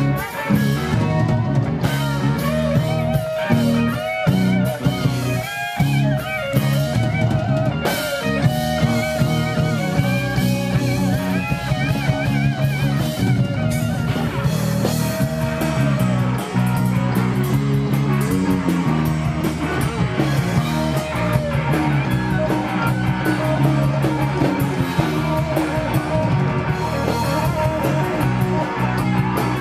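Live rock band playing: electric guitars over bass and a drum kit.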